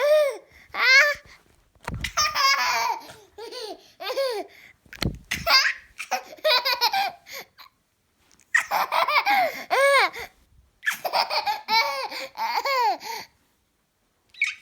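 A baby giggling in repeated bursts of high-pitched laughter, with short pauses between the fits. There is a brief low thud about five seconds in.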